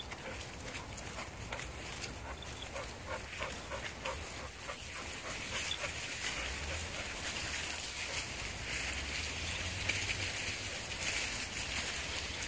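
Dogs moving through leafy undergrowth on a woodland path: rustling leaves and twigs and light footfalls. Over the first few seconds a dog gives a quick series of short huffing snuffles, about three a second, while sniffing along the ground.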